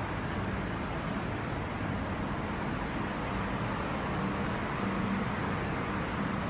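Steady street traffic noise, a continuous rush with a faint low hum.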